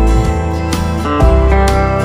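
Background music with guitar, possibly slide or steel guitar, over a steady bass.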